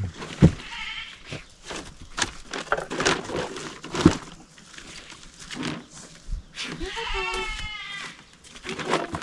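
An animal's wavering, bleat-like cry lasting about a second, near the end, among scattered knocks and scuffs.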